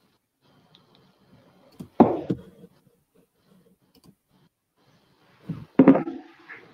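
Handling noise on a desk picked up by a computer microphone: faint scattered clicks, a loud thump about two seconds in, and a few more thumps near the end.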